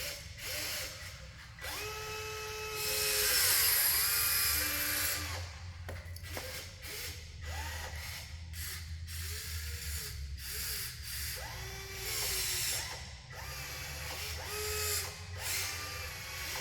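Whine of the small electric motors in radio-controlled model construction machines, rising in pitch, holding and falling again in repeated short runs as the machines start and stop. A louder hissing noise comes in about three seconds in and lasts a couple of seconds.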